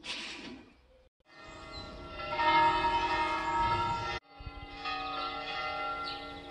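Bells ringing, with several steady tones sounding together. The ringing cuts off abruptly a little after four seconds, then resumes. A bird chirps faintly over it.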